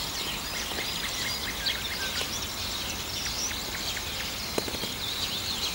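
Small songbirds chirping and singing over a steady outdoor hiss. Two faint clicks, one past the middle and one near the end.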